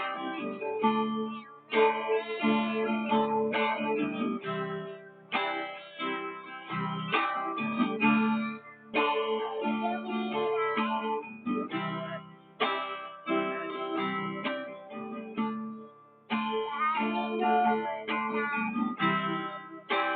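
Acoustic guitar playing, notes and chords plucked one after another, with a couple of short breaks.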